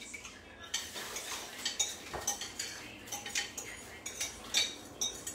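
Metal cutlery clinking and scraping against a ceramic dish: a string of irregular small clinks and knocks, a few a second.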